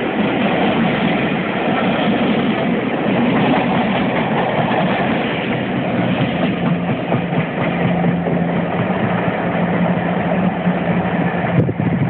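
Steam-hauled passenger train's coaches rolling past in a steady, loud rush of noise that carries on as the train draws away; a steady low hum joins about halfway through.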